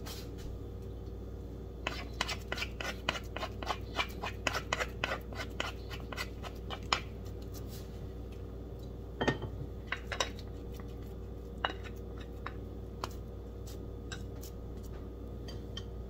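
Stiff semolina fufu being stirred in a glass bowl: utensils clicking and scraping against the bowl, quick light knocks for several seconds, then a few scattered ones, over a steady low hum.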